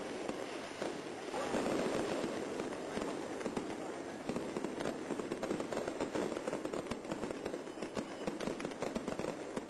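Crowd chatter at an outdoor procession, with firecrackers going off in irregular sharp cracks throughout.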